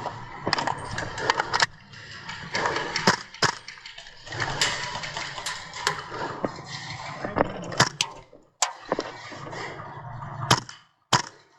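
Airsoft guns firing single sharp cracks at irregular intervals, about ten over the stretch, over a continuous rustle of movement.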